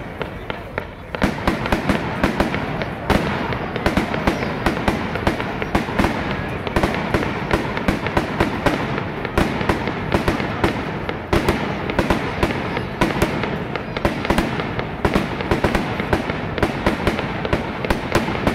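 Fireworks finale: a rapid, unbroken barrage of shells launching and bursting, several sharp bangs a second over a continuous rumble.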